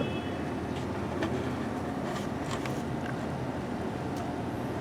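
An engine running steadily, with a few light clicks scattered through.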